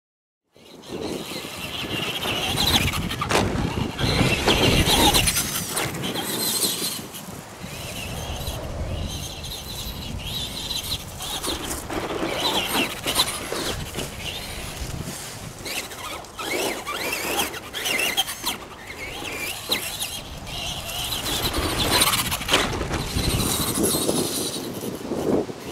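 Traxxas Bigfoot RC monster truck's electric motor and geartrain whining in repeated surges as the throttle is worked, the truck running over dirt and grass.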